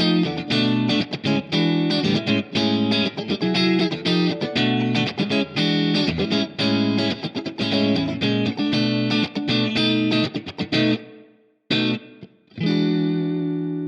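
Fender Player Stratocaster electric guitar played through an amp in a quick run of single notes. The playing breaks off about eleven seconds in, then one short note follows, and a chord rings out near the end.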